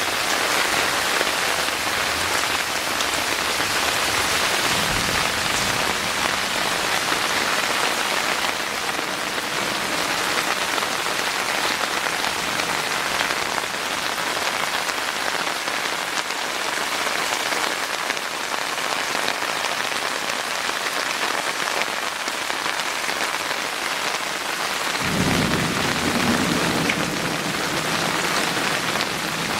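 Heavy rain falling steadily on hard surfaces during a flood, with a low rumble joining near the end.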